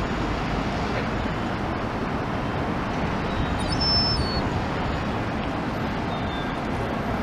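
Steady outdoor traffic noise, with a few short, high bird chirps about three and a half seconds in.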